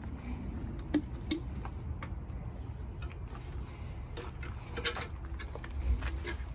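Light scattered clicks and taps from a metal gallon paint can and its wire handle as paint is poured from it into a plastic-lined bucket, over a low steady rumble.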